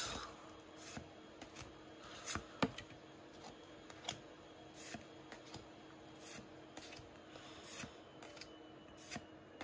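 Pokémon trading cards being slid one at a time from the back of a freshly opened booster pack to the front: a string of short, light card snaps and slides, a couple of sharper ones about two and a half seconds in, over a faint steady hum.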